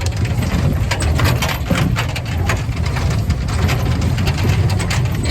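A vehicle engine running with a steady low rumble, with frequent rattles and knocks over it.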